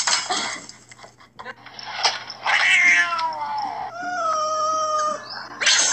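Cat meowing: a long call falling in pitch about halfway through, then a steadier held call, with brief sharp sounds before it and near the end.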